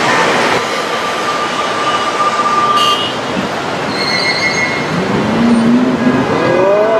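Busy road traffic noise with a long steady high tone over the first few seconds and short higher tones about four seconds in. Near the end a vehicle engine revs up, its pitch rising.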